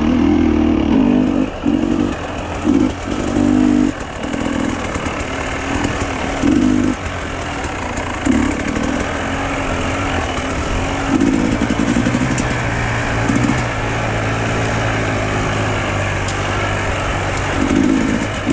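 A motor vehicle's engine running, with louder surges every second or two, at times steadier.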